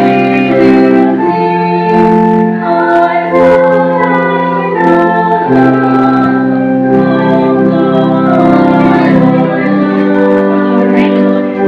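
Organ playing a slow hymn in long held chords that change every second or two.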